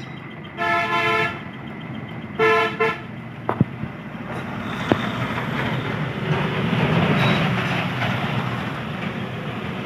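A vehicle horn tooting twice, about a second and a half apart, followed by the rumble of passing road traffic that swells and fades over several seconds.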